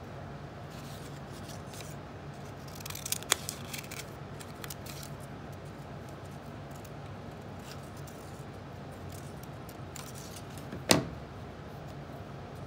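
Scissors snipping construction paper, with a cluster of sharp snips about three seconds in. Near eleven seconds comes a single loud clack as the scissors are put down on the table. A faint steady low hum runs underneath.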